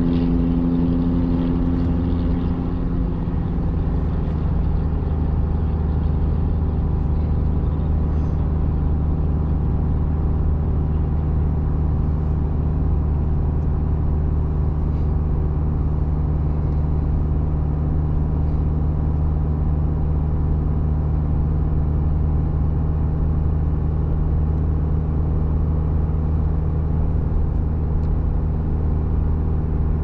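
Vehicle engine pulling steadily under load with tyre and road noise, heard from inside the cabin while climbing a long steep grade. A higher hum fades out about two seconds in.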